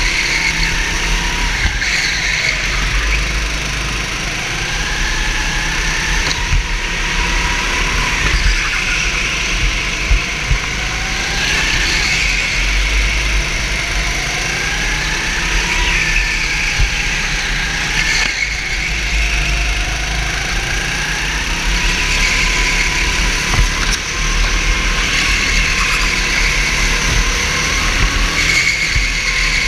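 Go-kart engine heard from on board during a race, its note repeatedly climbing as it accelerates and dropping as it lifts for the corners, with another kart's engine close ahead.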